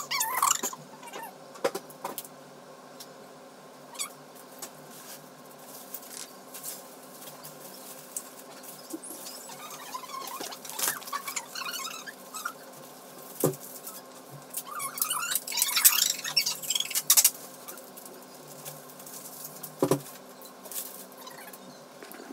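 Plastic bubble wrap and bags crinkling and rustling in irregular bursts as things are packed, loudest about two-thirds of the way through, over a steady hum and a few sharp knocks.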